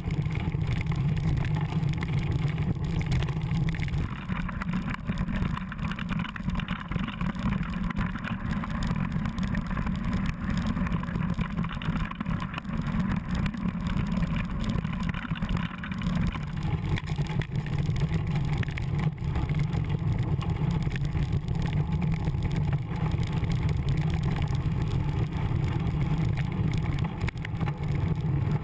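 A mountain bike rolling fast over a dirt and rocky trail, heard from a camera mounted on the bike: a steady low wind rumble on the microphone with constant rattling and knocking from tyres on gravel and the bike shaking. The sound changes on a rockier stretch from about 4 to 16 seconds in.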